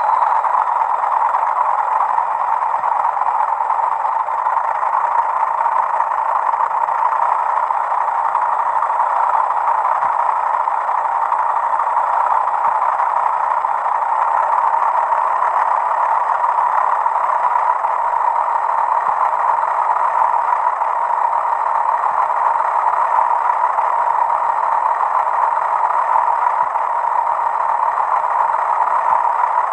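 Recorded sound of a BR Class 40 diesel locomotive's English Electric 16SVT engine, played by a Hornby TTS sound decoder, running steadily under power after a start with notching. A faint high whistle fades away in the first couple of seconds.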